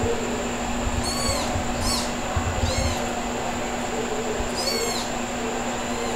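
Kitten mewing in short, high calls, four times in the space of a few seconds, over a steady background hum.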